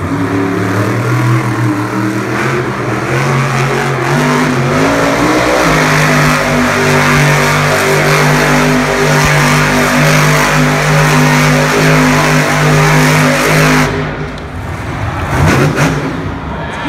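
Grave Digger monster truck's supercharged V8 running hard as the truck spins in circles on the arena dirt. The engine note climbs a few seconds in and holds high and steady for about eight seconds. It then drops back, with one more short rev near the end.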